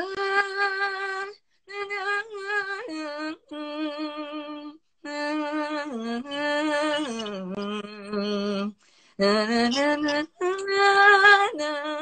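A woman singing unaccompanied in the sinden style of Javanese and Sundanese vocal music: long held notes with a wavering vibrato and sliding ornaments, sung in several short phrases with brief breaks between them. Past the middle the line sinks to a lower note, then slides back up for the last phrases.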